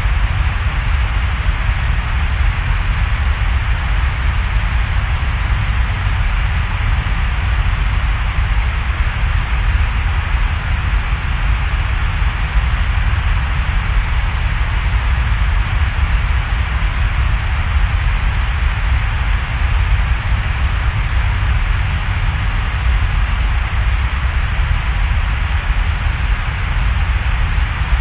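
Steady, unbroken background noise: an even hiss with a deep rumble underneath, like a rain or white-noise ambience, with no change in level.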